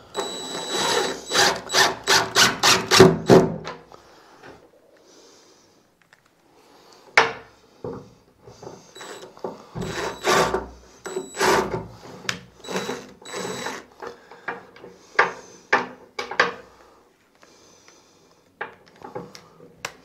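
Screws being driven into a wooden door to fix a door latch: a quick rhythmic run of about three strokes a second at the start, then more bursts of the same work in the middle.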